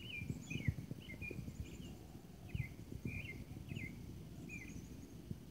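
Faint bird chirping in the background: a string of short, thin chirps, two or three a second, that stops a little before the end. Soft low rustles and taps lie underneath.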